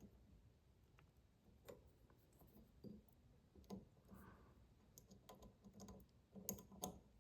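Faint, scattered clicks and taps of tool and metal faucet parts as a faucet valve is snugged up tight.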